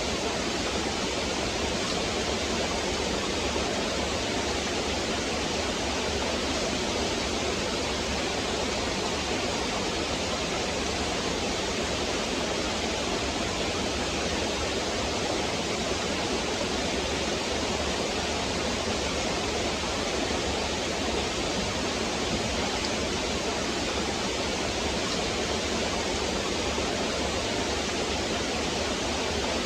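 A stream flowing, a steady, unbroken rush of water.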